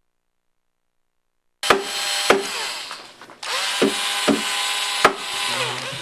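Construction power-tool noise, a saw-like cutting sound with several sharp knocks, starting abruptly after about a second and a half of silence.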